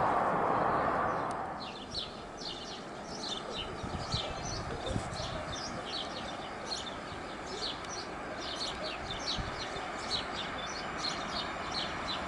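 Small birds chirping in many quick, repeated calls over a steady low rumble from a distant approaching freight train. A louder rushing noise fades away in the first second or two.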